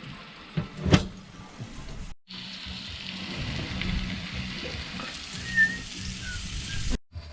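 Galley cooking sounds: a sharp knock about a second in, then a steady hiss of cooking or running water.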